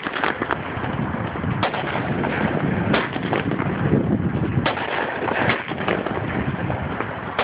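Consumer multi-shot firework cake going off: sharp bangs every second or so over a steady noisy hiss.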